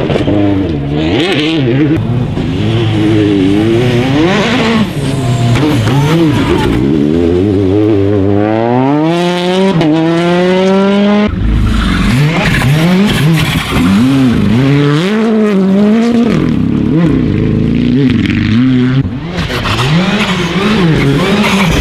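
Rally cars passing at speed one after another on a special stage, their engines revving up and dropping back with gear changes and lifts. About halfway through, one long rising rev breaks off suddenly at a cut to the next car.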